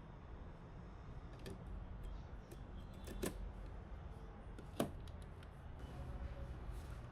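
Computer parts being handled and fitted during a PC build: a few sharp clicks and taps, the loudest two about three seconds in and just under five seconds in, over a low steady hum.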